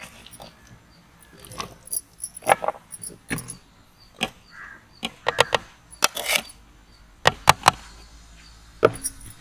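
Diced pineapple being gathered off a steel tray and dropped by hand into a plastic blender jar, then sugar tipped in from a steel bowl: irregular soft knocks and clatters of fruit pieces and utensils.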